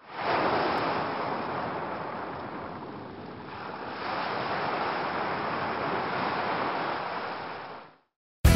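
Ocean surf: waves washing in with a steady rush. It swells up at the start, ebbs, surges again about four seconds in, and fades out near the end.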